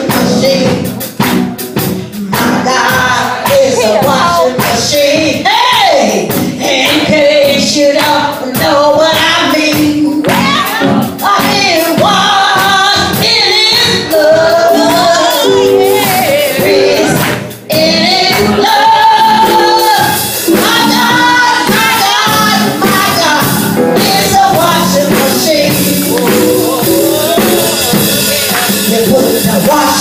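A woman singing a gospel song into a microphone, the melody rising and falling in long held notes over accompaniment with a steady tambourine-like beat.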